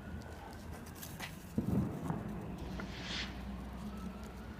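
Fireworks going off in the distance: a dull thump about one and a half seconds in and a few faint pops and crackles over a low steady rumble.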